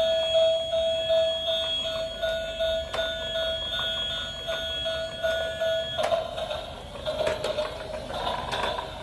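Electronic sound from a battery-operated light-up toy car: a steady beeping tone pulsing about twice a second, which changes about six seconds in to a busier, noisier electronic jingle.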